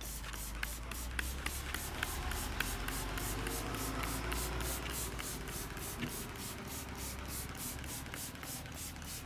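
Massage by hand: palms rubbing briskly and rhythmically over skin and hair, a swish about three times a second with faint slaps and clicks among the strokes.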